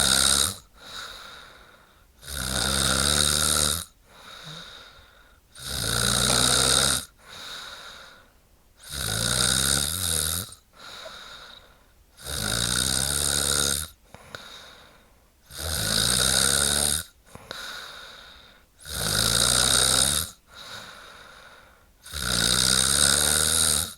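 A woman snoring in a steady rhythm: a loud snore about every three seconds, each lasting about a second and a half, with a softer breath between snores.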